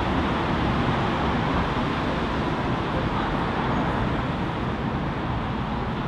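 Steady hum of city street traffic.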